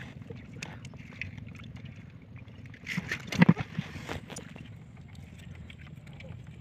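Scattered knocks and scrapes against the floor of a wooden outrigger boat as fish are picked out of a net, with a loud cluster of thumps about three seconds in, over a steady low rumble.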